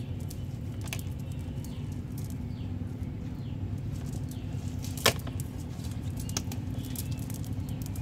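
Steady low outdoor rumble with scattered small clicks from fish being handled in a wet hand, and one sharp click about five seconds in.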